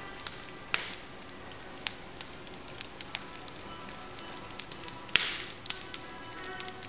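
Wood fire in a fireplace crackling, with scattered small pops over a low hiss. Two sharp pops stand out, one just under a second in and a louder one just after five seconds, followed by a brief hiss.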